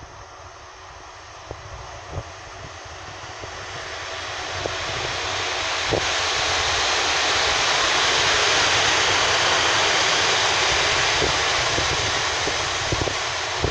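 EU07 electric locomotive running light and passing close by: a broad rushing noise that swells as it nears, peaks about two-thirds through and eases slightly near the end, with a few sharp clicks and knocks from the running gear.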